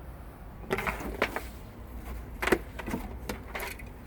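Dresses being handled: a string of short rustles and light clicks from fabric and hangers moving, the loudest about two and a half seconds in.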